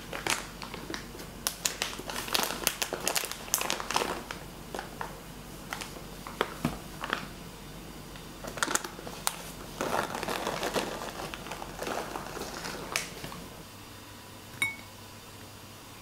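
A packet being handled, crinkling in irregular bursts of sharp crackles that die away a couple of seconds before the end, followed by a single small click.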